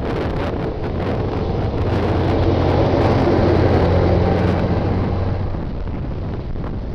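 Heavy military truck engine running as the truck drives past towing a field gun, growing louder to a peak about halfway through and then fading. Wind buffets the microphone.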